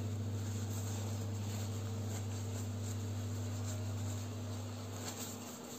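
A tissue rubbing over a tempered-glass screen protector on a phone, smoothing out trapped air bubbles, faint under a steady low hum.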